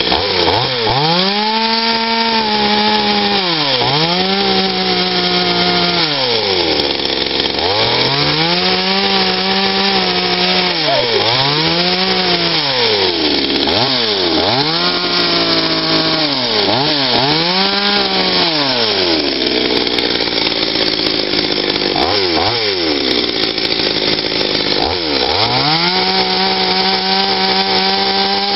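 Patriot two-stroke chainsaw carving into a log, its engine pitch rising and falling over and over as the throttle is opened and eased off for short cuts. For a few seconds past the middle it runs lower with only brief revs, then rises to a steady high pitch near the end.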